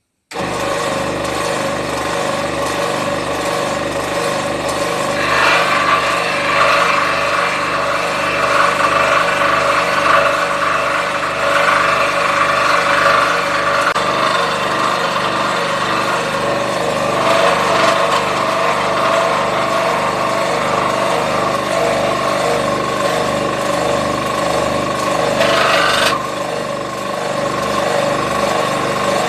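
Scroll saw running, its blade cutting through MDF as the workpiece is fed by hand. It runs steadily, growing harsher in several stretches of the cut.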